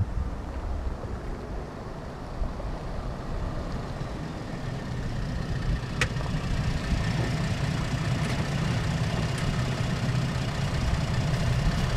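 Pickup truck driving slowly up to the microphone on a dirt road, its engine running at low revs and growing louder through the second half as it draws close. There is one sharp tick about halfway through.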